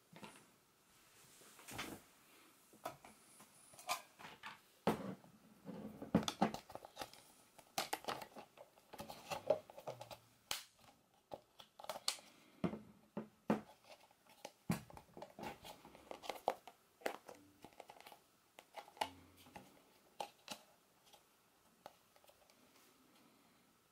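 Close handling noise of elastic bands being stretched and a silicone tableware band being fitted around a stacked plastic container: irregular soft clicks, taps and rubbing, several a second at the busiest.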